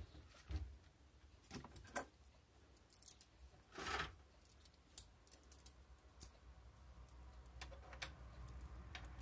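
Faint scattered metal clicks and taps as a scope mount ring is handled and fitted onto an aluminium Picatinny rail on an air rifle, with a short scrape about four seconds in.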